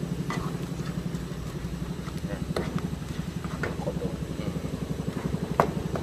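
A small engine idling steadily with a rapid, even pulse. Over it come a few short clicks and scrapes of a plastic spatula on a nonstick wok, the sharpest near the end.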